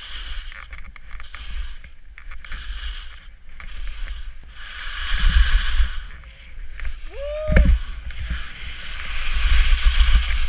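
Skis sliding and carving through snow: surges of hissing scrape that rise and fall turn by turn, over a low rumble of wind on the microphone. About seven seconds in, a short rising tone ends in a sharp thump.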